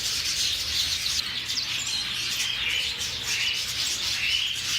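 Many caged finches and other small birds chirping at once, a dense, unbroken chatter of high, short calls and trills.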